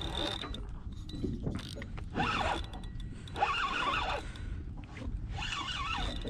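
Fishing reel being cranked in spurts, its gears whirring and clicking, as a hooked catfish is reeled in.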